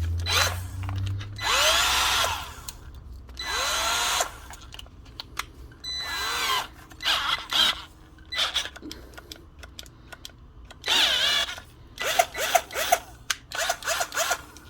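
Ryobi HP108L 8-volt cordless drill run on its trigger in short bursts, the motor spinning up and winding down each time. There are a few longer runs, then a quick series of short blips near the end.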